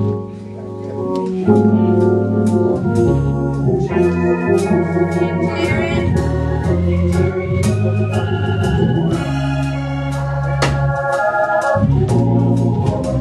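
Church organ, a Hammond-type sound, playing the sustained chords of a gospel song's instrumental introduction, with sharp percussive hits throughout.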